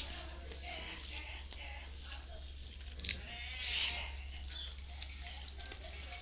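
Close-miked eating by hand: wet chewing and lip-smacking as rice mixed with bottle gourd curry is eaten from the fingers, with a louder burst of mouth noise just before four seconds in. A steady low hum lies underneath.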